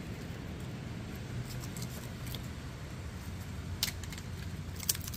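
Raccoons eating: a few sharp crunches and clicks of food being chewed and picked at, the loudest near the end, over a steady low hum.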